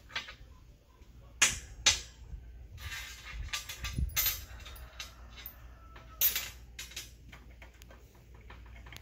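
Metal clanks and rattles from handling a winch's steel wire rope and fittings on a steel mounting plate: two sharp knocks about half a second apart early on, a stretch of rattling around the middle, and another sharp knock past the middle.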